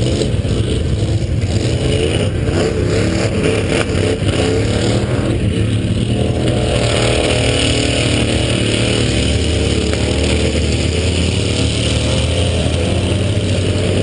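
ATV engine running at low speed, loud and steady, its pitch wavering up and down as the throttle is worked. A steady hiss joins from about halfway through.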